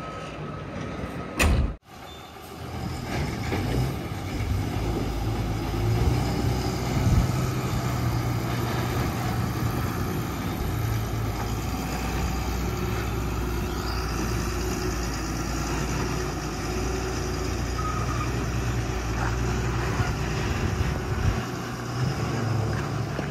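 A short loud knock and a brief drop-out about a second and a half in, then the diesel engine of heavy construction machinery running steadily with a low, even rumble.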